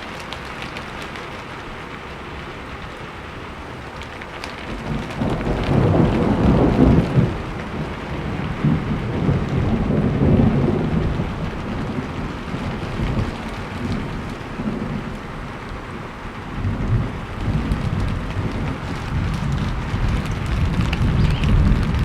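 Steady rain falling, with thunder rolling in about four seconds in and rumbling low in several long swells, loudest around the middle and again near the end.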